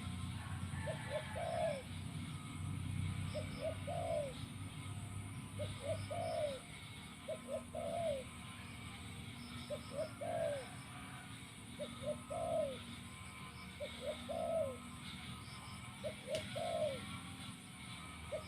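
Spotted dove cooing, repeating the same phrase about every two seconds: two short notes, then a longer arched coo.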